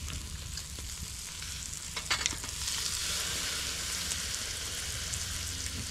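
Oysters sizzling on a grill: a steady frying hiss that swells about three seconds in, with a brief sharp click about two seconds in.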